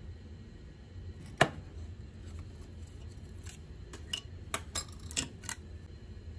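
Metal clicks from a rusty Capewell hand plane being taken apart by hand. There is one sharp knock, then a quick run of lighter clicks and clinks as the lever cap is released and the iron lifted out.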